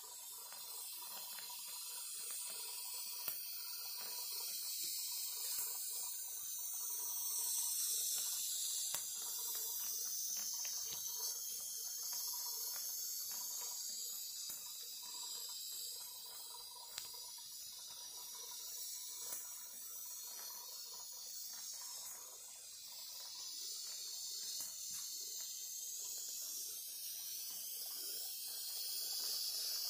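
Live-steam model plant of a Stuart beam engine and Stuart 501 boiler under a propane burner, giving a steady high hiss with faint, irregular ticks and clicks.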